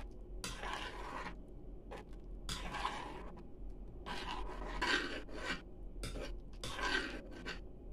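A spoon stirring beef pares in a stone-coated pot, scraping against the pot in a string of uneven strokes, roughly one a second, while cornstarch thickens the broth.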